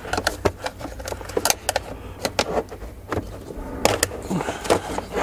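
Irregular sharp plastic clicks and snaps as a plastic trim tool pries plastic clips and a plastic cover loose, with a couple of louder snaps about one and a half and four seconds in.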